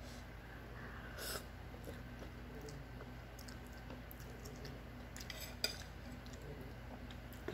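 Chopsticks and a metal spoon clicking against a ceramic bowl while noodles are eaten: a few light clicks, the sharpest about five and a half seconds in, over a steady low hum.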